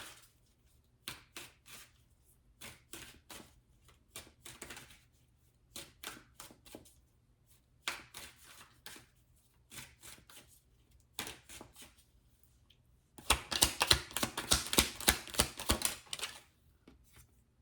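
Tarot cards being shuffled by hand: scattered short runs of card clicks and flicks, then a louder, dense run of rapid card flicking lasting about three seconds near the end.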